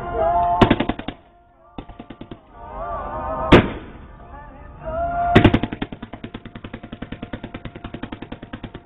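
Fireworks going off: three sharp booms, about half a second in, three and a half seconds in and five and a half seconds in, the last followed by a long rapid crackle of about ten pops a second that runs on almost to the end.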